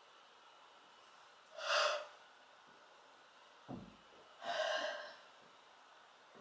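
A girl yawning: two loud, breathy gasps of air, a short one about one and a half seconds in and a longer one about four and a half seconds in, with a soft low bump just before the second.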